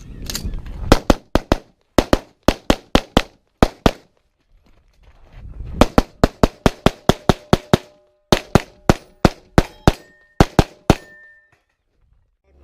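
Rapid strings of pistol shots fired in a practical shooting stage: quick pairs and runs of shots, a pause of about two seconds near the middle, then more fast strings. After some of the later shots there is a short ringing from hit steel targets.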